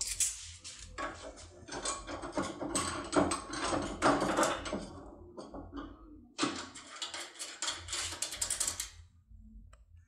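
Metal clicks and scrapes from a brass lock cylinder being handled and clamped in a steel bench vice, with a busier run of clicking after a short lull that stops about a second before the end.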